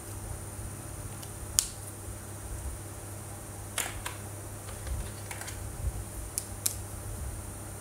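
About half a dozen sharp plastic clicks and light taps, the loudest about a second and a half in, over a steady low hum: felt-tip marker caps being pulled off and snapped on, and markers set down, while switching colors.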